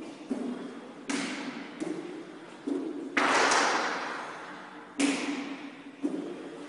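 Medicine ball slapping into hands again and again as it is thrown and caught between two people, each hit trailing off in the room's echo; the loudest, longest slap comes a little after three seconds in.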